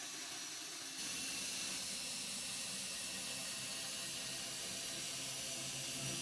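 Steady faint hiss with a low hum underneath, rising a little about a second in.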